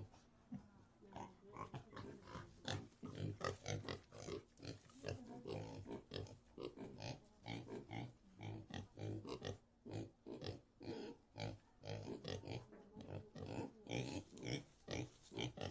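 Several pigs grunting and oinking, short grunts following one another in quick, overlapping succession, a little sparser for the first second or so.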